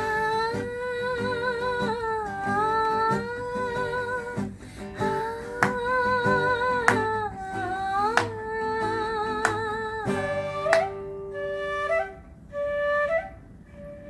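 A woman hums a wordless melody with vibrato over a nylon-string classical guitar. About ten seconds in, a bamboo flute takes over with one long held note, followed by a few short stepped phrases.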